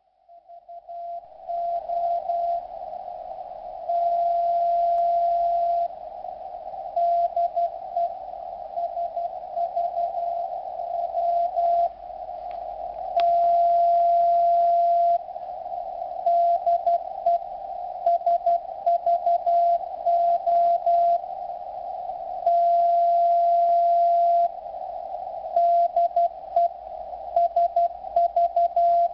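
Morse code (CW) telegraphy from the Greek coast station Olympia Radio (SVO) on 8424 kHz, heard through a Yaesu FT-897 receiver in CW mode. A steady beat tone is keyed in dots and dashes, with a long unbroken tone of about two seconds roughly every nine seconds, over a faint hiss of band noise. The signal fades up over the first second or so.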